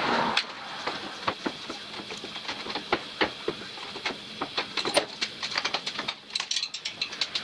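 Irregular clicks, knocks and rattles of a wheeled saw-bench frame carrying an old stationary engine as it is rolled down wooden planks.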